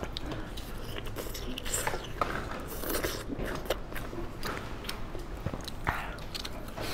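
Close-up eating sounds: chewing and biting braised meat, with irregular short clicks, alongside plastic-gloved hands pulling the meat apart.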